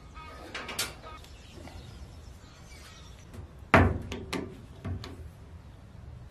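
Hand-work noises from fitting a plastic hose to a steel sandblasting cabinet and tightening its hose clamp with a screwdriver. A loud sharp knock comes a little under four seconds in, followed by a few lighter clicks. Birds chirp faintly near the start.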